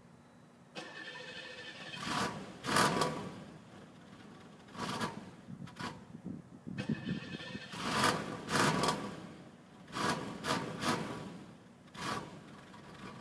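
1990 Cadillac engine on a hard cold start, cranked and catching in several uneven surges that fade between them, about six in all. The owner blames the struggle to start on a badly faulty idle air control.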